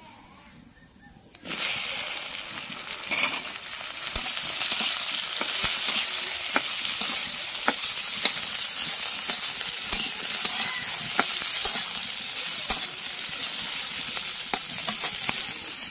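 Okra going into hot oil in a frying pan: about a second and a half in, a loud sizzle starts suddenly and keeps on steadily. Sharp clicks of a spatula stirring against the pan come through it.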